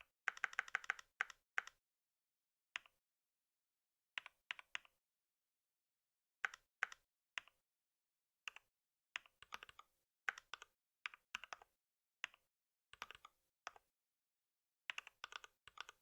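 Computer keyboard typing in short bursts of keystrokes, with the quickest run at the start and pauses between bursts, the longest about a second and a half near the middle, with dead silence in the gaps.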